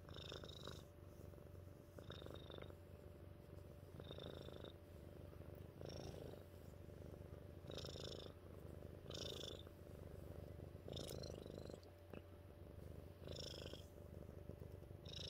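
Black-and-white tuxedo cat purring contentedly while being scratched under the chin: a quiet, continuous low rumble that swells with a breathy rasp about every two seconds as the cat breathes in and out.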